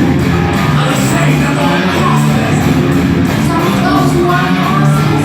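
A live rock band playing loud, heavy music: distorted electric guitars, bass and drums with a steady beat.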